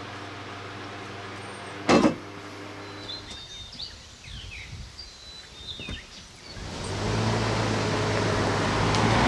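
A steady fan hum broken by a sharp thump about two seconds in, then birds chirping. From about seven seconds, a Chevrolet TrailBlazer SUV drives along a grassy track, its engine and tyre noise growing louder as it comes closer.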